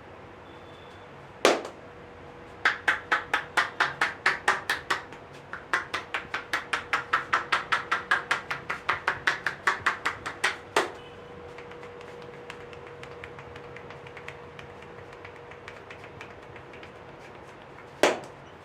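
Hands slapping and chopping on a person in percussive massage strokes: a single slap, then two quick even runs of strokes at about five to six a second, a last slap of the run, and one more slap near the end.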